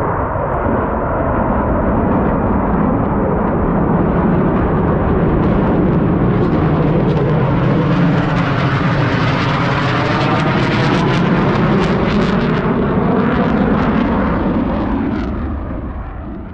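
Blue Angels F/A-18 jets flying over: loud jet engine noise that builds, is strongest with a sweeping, phasing whoosh in the middle, and fades away near the end.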